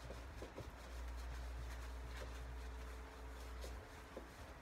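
Faint rubbing of a tissue wiping marker writing off a whiteboard, with a sharp click near the end.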